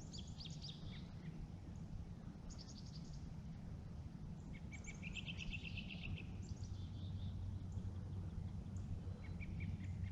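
Songbirds calling: several short chirps and a rapid trill about five seconds in, over a steady low outdoor rumble.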